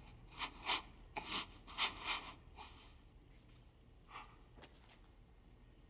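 A man breathing hard in short, quiet gasps, a quick run of them over the first two and a half seconds, then a few more spaced out.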